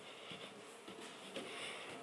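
Faint footsteps on a wooden floor, a few soft knocks about half a second apart, over light rustling from handling the camera.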